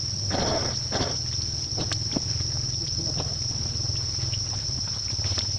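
Outdoor ambience: a steady high-pitched insect drone, with rustling in dry leaves in the first second or so and a few light clicks after.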